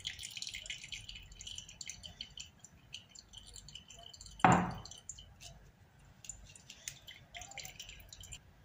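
Fork scraping and pressing a thick oily paste of ground black seed (nigella) and olive oil through a plastic mesh strainer: faint small clicks, scrapes and wet squishing. About halfway through there is one brief louder sound.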